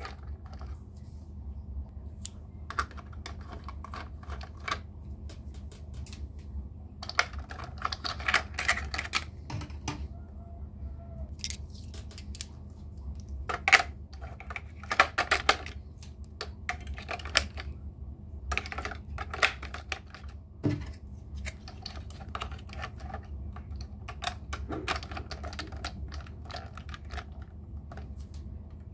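Plastic toy trains and track pieces being handled: irregular clicks and small clatters, with a louder knock near the middle, over a steady low hum.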